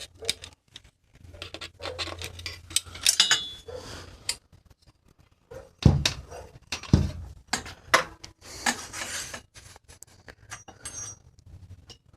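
Clinks, clicks and clatter of hand tools on metal bicycle brake parts as a brake is taken off a mountain bike, with two dull thumps about six and seven seconds in.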